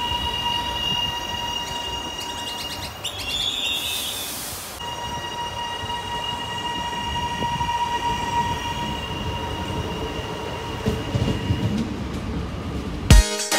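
Electric suburban trains running through a station, giving a steady high whine over wheel and track rumble, with a short hiss about four seconds in. The rumble grows near the end as a train draws in. Music with a beat cuts in just before the end.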